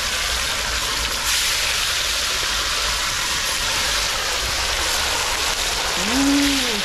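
Patwah fish frying in hot oil in a cast-iron karahi: a steady sizzle of vigorously bubbling oil. About six seconds in, a short pitched hum rises and falls over it.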